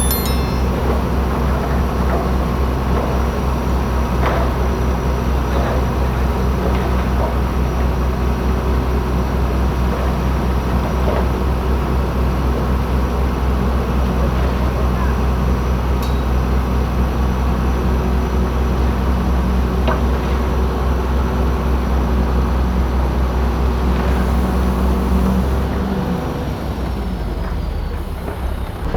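Heavy diesel engine of earthmoving equipment running steadily under load, a deep even drone with occasional clanks. The engine note drops near the end.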